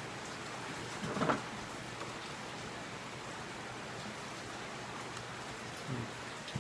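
Steady rain falling, an even hiss throughout. Two brief clunks from handling a fan motor assembly, the louder one about a second in and a smaller one near the end.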